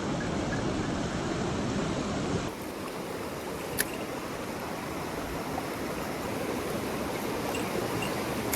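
Mountain stream water rushing steadily, with one short click about four seconds in.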